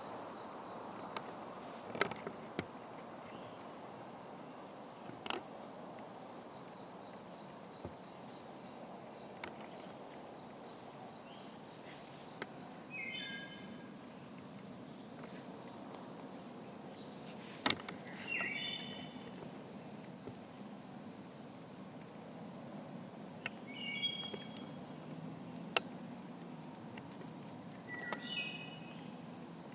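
Woodland insect chorus: a steady high-pitched drone with short chirps about once a second. A songbird sings a short phrase of falling notes four times, and a few sharp clicks stand out, the loudest about two seconds in and near eighteen seconds.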